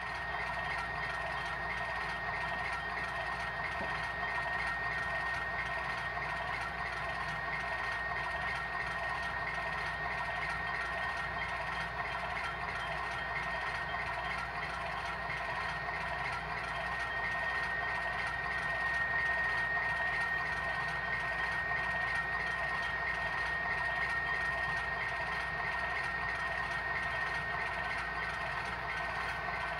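Model diesel locomotive running steadily, with a high-pitched steady whine over the engine sound that grows louder past the middle.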